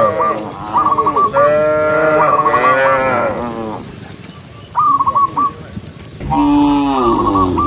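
Cattle mooing: several long, loud moos, two overlapping in the middle and another near the end. Bursts of short, quick, high chirps recur between the calls.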